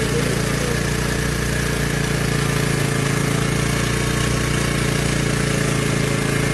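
Engine on a small fishing boat idling steadily, a constant even drone with no change in speed.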